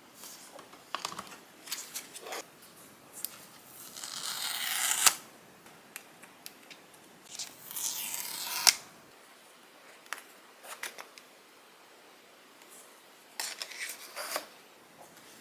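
Apple Watch packaging being opened by hand: light taps, clicks and scrapes, and twice a drawn-out tearing sound of about a second that grows louder and ends in a sharp snap.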